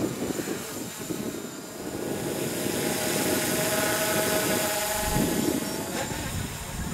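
The brushless motors and propellers of an MJX Bugs 3 quadcopter whine in flight. The whine is steady and clearest from about two to five seconds in. Strong wind rumbles over the microphone throughout.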